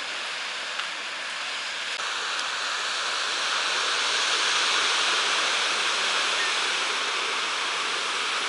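Pacific Ocean surf breaking on the beach below, heard from the clifftop as a steady hiss that swells about halfway through and then eases.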